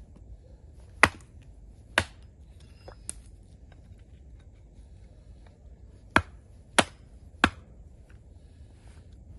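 Five sharp knocks: two about a second apart, then, after a pause, three more about two-thirds of a second apart, with one fainter click between them.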